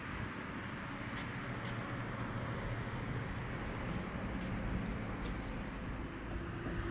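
Steady wind rumble and lapping of choppy water against a seawall. Footsteps tick on wet concrete, then a fishing rod is cast with a brief swish about five seconds in.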